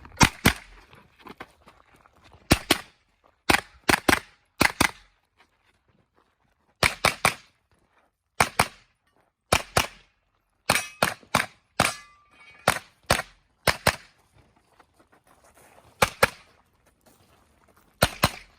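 Pistol-caliber carbine firing rapid pairs and short strings of shots, about thirty in all, with pauses of a second or two between groups.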